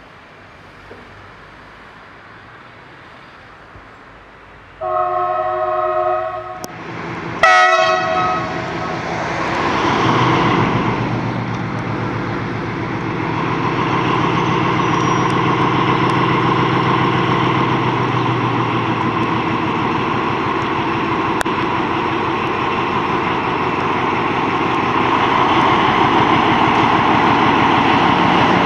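MÁV class M41 diesel locomotive sounding its horn twice, a long blast about five seconds in and a short one about two seconds later, then its diesel engine running steadily and growing louder as it approaches with its passenger coaches.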